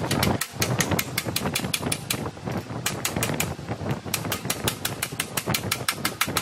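Rapid, even metal tapping, about seven blows a second, like a light hammer working sheet metal.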